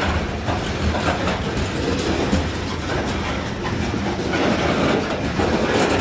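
Covered hopper cars of a freight train rolling past, steel wheels clacking over the rails above a steady rumble.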